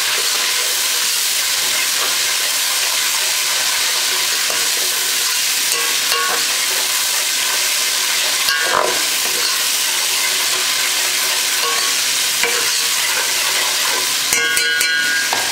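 Garlic-ginger paste and bay leaves sizzling steadily in hot oil in an aluminium pot while a metal spoon stirs them, with a few ringing scrapes of the spoon against the pot near the end.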